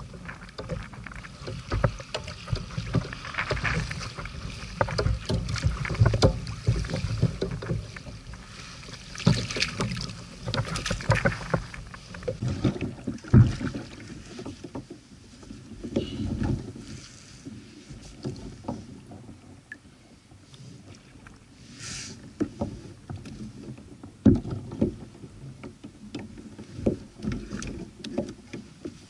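Handling noise aboard a plastic Hobie Outback fishing kayak: irregular knocks, clicks and clatter, busiest in the first half, over wind buffeting the microphone.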